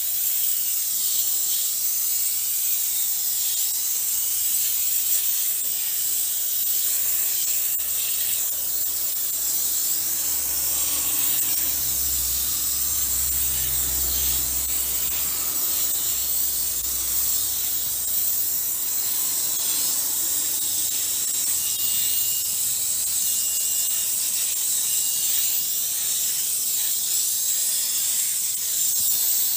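Pressure washer jet spraying a removed car radiator and the wet, foamy ground around it: a steady hiss. A low rumble rises for a few seconds in the middle.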